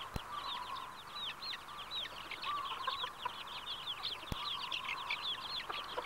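Red junglefowl chicks cheeping rapidly and continuously in short, high, falling peeps, with lower calls from the hen now and then. Two sharp clicks, one just after the start and one after about four seconds.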